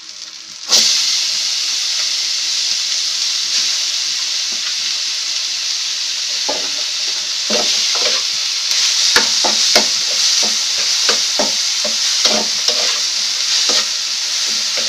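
Chopped wet snake gourd seeds tipped into hot mustard oil: a sudden loud sizzle less than a second in, then steady frying hiss. From about halfway, a metal spatula scrapes and clicks against the pan as the seeds are stirred.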